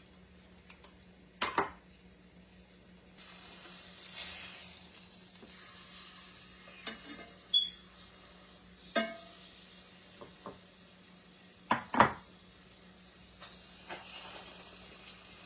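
Flour-dredged beef shanks searing in hot oil in a pan: a steady sizzle that gets louder about three seconds in, with several sharp knocks against the pan, the loudest a double knock near the end.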